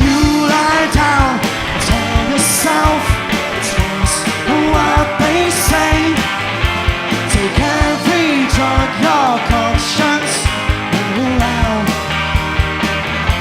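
Live rock band playing: drum kit keeping a steady beat under bass and guitar, with a melody line that slides up and down in pitch.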